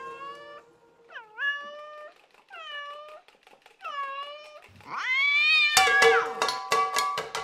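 A domestic cat meowing five times, the last meow longer and rising in pitch. From about six seconds in, a fast clatter of metallic clanks with ringing tones takes over.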